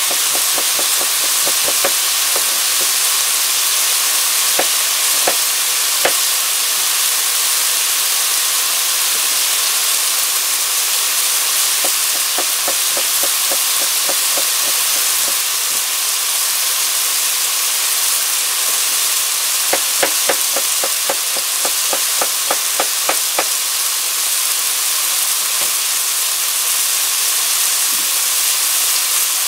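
Pork and vegetable stir-fry sizzling in a frying pan: a steady hiss of frying and steam, with three spells of rapid crackling pops from the pan.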